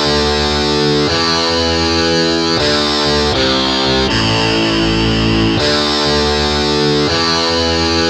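Instrumental electronic music track made in FL Studio: dense, loud sustained chords that change every second or so in a repeating progression.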